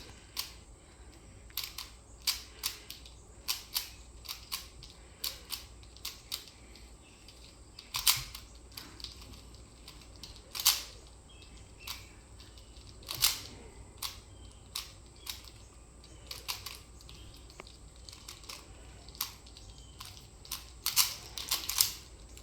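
Rubik's Cube being turned quickly by hand: irregular sharp plastic clicks and clacks as the layers snap round, a few of them louder.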